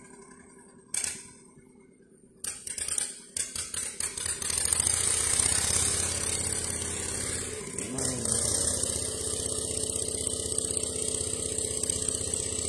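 A few knocks, then from about three seconds in a small engine running steadily at an even pitch.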